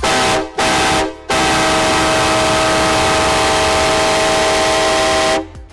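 Train whistle blown loud: two short blasts, then one long blast of about four seconds, several steady tones sounding together as a chord over a rushing hiss.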